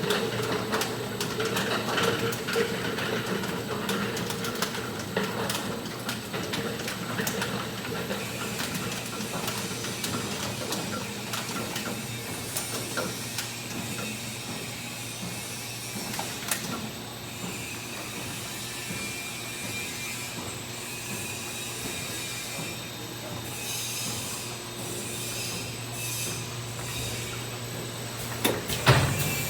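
Automatic liquid-soap filling and packing line running: a steady machine hum under constant clicking and clatter, with a louder knock near the end.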